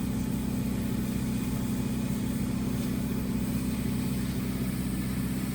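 Heavy equipment engine idling steadily, an even low hum with no change in speed.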